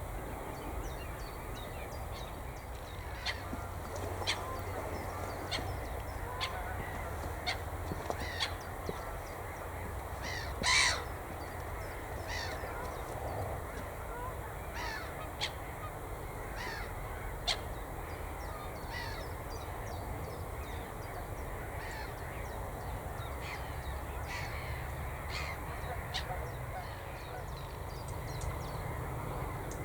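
Wild birds calling, with many short, sharp calls scattered throughout and one louder call about eleven seconds in, over a steady low rumble.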